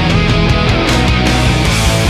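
Loud heavy rock music with guitar and a driving beat.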